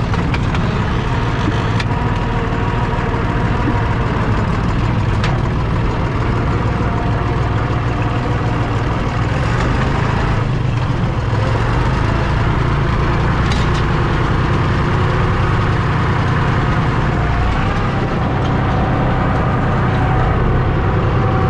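Valmet 359D tractor's diesel engine running steadily under load while pulling a seed drill, heard from inside the cab, with a few faint ticks.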